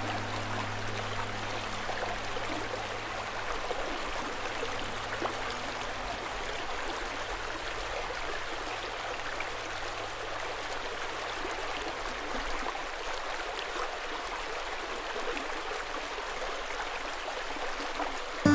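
Steady rush of flowing river water. A low hum underneath stops about two-thirds of the way through.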